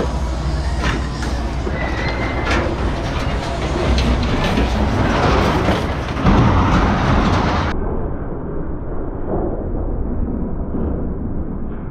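Loud, steady mechanical rumble from heavy scrapyard machinery, with scattered metallic clanks and rattles from scrap metal being handled. After about eight seconds the sound turns duller.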